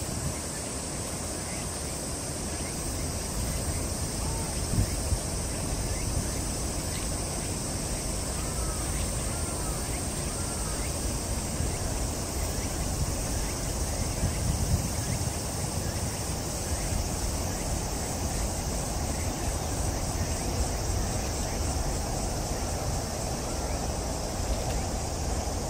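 Outdoor garden ambience: wind on the microphone and a low steady city rumble, under a steady high hiss, with a few faint short chirps now and then.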